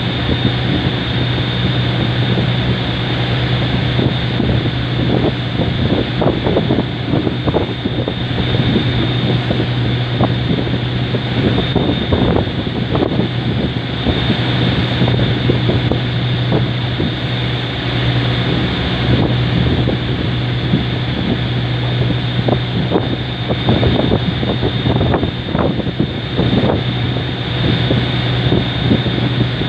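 Boat engine running at a steady drone with a constant low hum, while wind buffets the microphone in irregular gusts.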